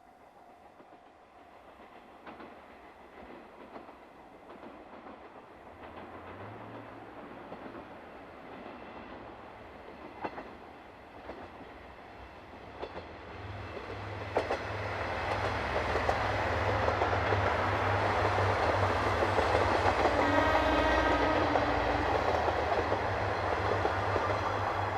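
A diesel railcar approaching, its engine rumble and wheel noise growing steadily louder, with a few sharp clacks of wheels over rail joints. About twenty seconds in comes a short horn blast lasting a second or two.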